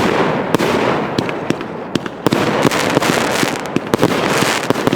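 Planet X 'Dark Matter' 500 g fireworks cake firing: sharp bangs of aerial bursts come several a second over a continuous dense hiss of noise.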